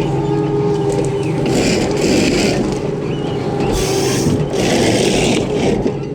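A large machine's engine running steadily, with several noisy hissing bursts, each about a second long, laid over it.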